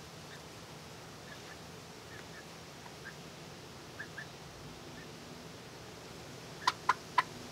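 Hen giving soft, short clucks, mostly in pairs, then three sharp taps in quick succession near the end as her beak pecks on the wire cage top.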